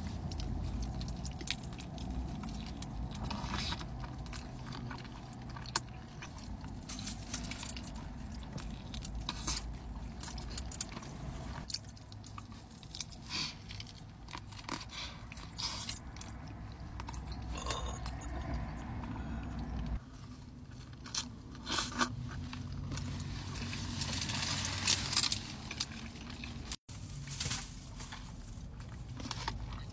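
Close-up eating sounds of a person biting and chewing a California burrito: wet chewing with frequent short crunches and clicks, over a low rumble.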